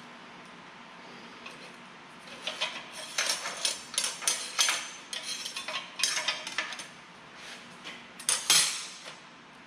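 Steel parts and clamps clinking and clattering on a metal welding table as a frame is set up and clamped. Bursts of irregular sharp metallic knocks come about two seconds in and last several seconds, then a short louder cluster comes near the end.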